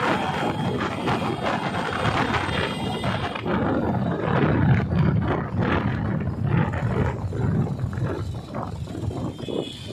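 Road traffic noise: engines of passing motorcycles and scooters, heard as an uneven roar that rises and falls.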